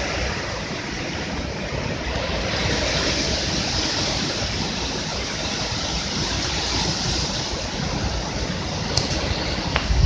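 Strong hurricane wind gusting in a steady loud rush, with a low rumble of the wind buffeting the microphone.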